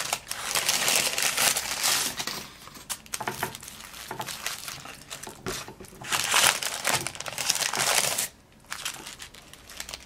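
Crisp paper burger wrappers crinkling as they are handled, unfolded and peeled back, in several spells of rustling with short pauses between.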